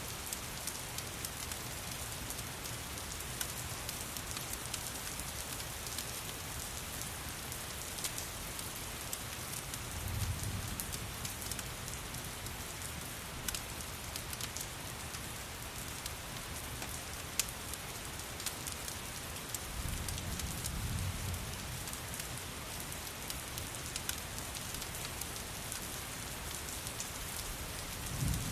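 Steady rain with scattered sharp crackles from a wood fire. A few short low rumbles come about ten and twenty seconds in and again at the end.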